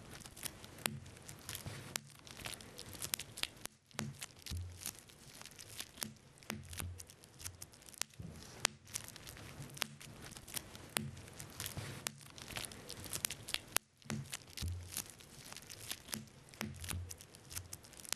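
Bubble wrap being popped by fingers: a run of irregular sharp pops, several a second, with the crinkle of the plastic sheet being pressed and handled.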